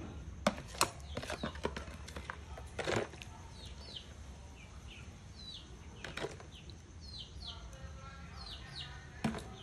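Metal spoons tossing a raw beef salad in a plastic container: sharp clinks and clicks in the first two seconds, then a few soft stirring rustles. Short falling bird chirps repeat throughout.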